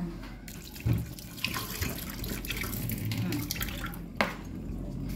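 Water running from a tap as a cucumber is washed under it, starting about half a second in, with a couple of sharp knocks.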